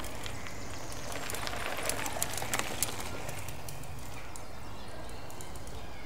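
Woodland ambience: a steady low rumble with faint bird calls, and a brief flurry of sharp clicks or knocks about two seconds in.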